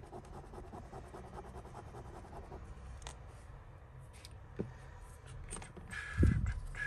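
A metal jewellery piece rubbed back and forth in quick scratching strokes as it is tested for gold, then a clunk about six seconds in as something is set down.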